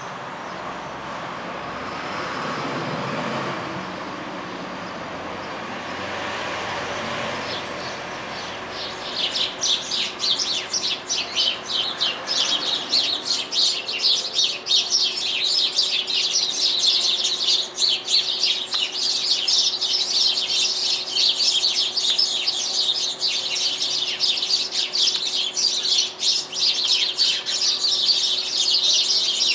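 Small birds chirping rapidly and without pause in a squabble, the calls packed tightly together and starting about a third of the way in. Before that, a vehicle's passing noise swells and fades.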